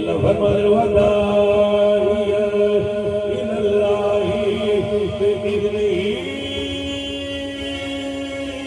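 Male voices in devotional chanting, holding long notes; the pitch steps to a new note about six seconds in.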